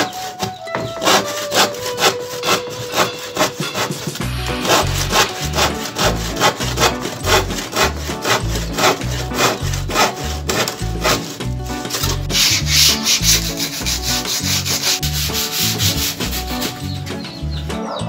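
Hand saw cutting through a laminated plywood board, a steady back-and-forth rasp of about three strokes a second.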